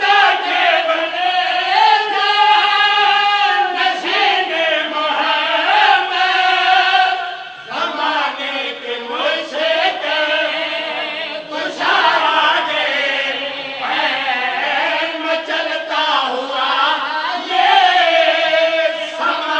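Group of men chanting a devotional song together into a microphone, with long held notes.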